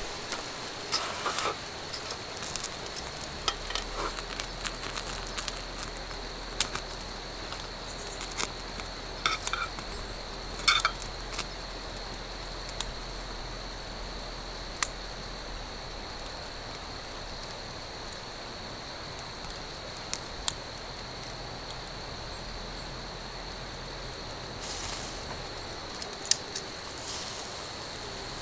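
Wood fire crackling under a camp grill grate, with occasional sharp clicks as metal tongs handle grilled bone-in meat, over a steady high-pitched insect trill.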